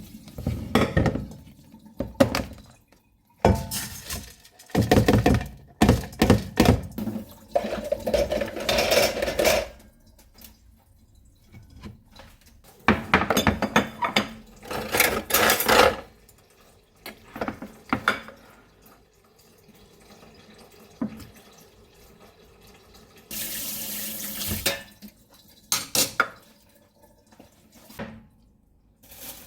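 Kitchen tap turned on and off several times, water splashing into a sink, with dishes and utensils clattering between the runs.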